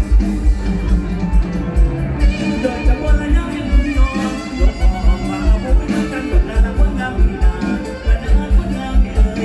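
Mor lam band music playing a medley, with a heavy, steady bass beat about four times a second under melodic lines.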